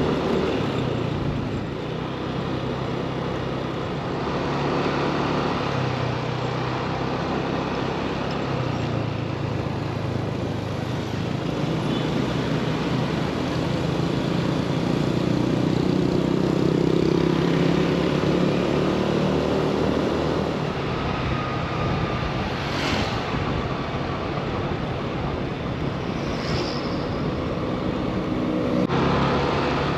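A road vehicle driving, its engine and road noise running steadily, with the engine pitch rising and falling as it speeds up and slows.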